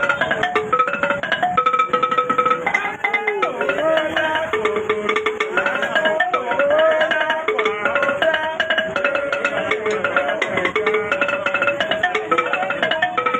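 Gbange music: voices singing wavering held notes over a dense, busy percussion rhythm.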